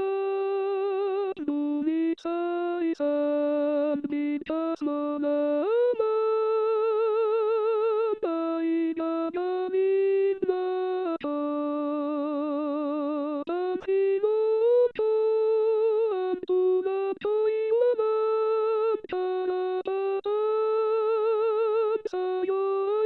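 Notation-software playback of the soprano line of an SATB choral piece. A synthetic choir voice sings the melody note by note, with short breaks between phrases, and the held notes waver with an even vibrato.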